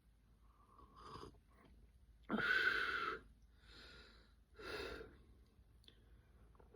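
A person's breathy sounds: four short bursts of breath, the loudest about two and a half seconds in.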